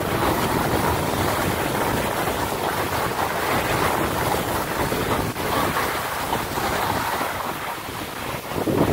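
Steady rushing noise of wind buffeting the microphone while skiing, mixed with the hiss of skis sliding over spring snow.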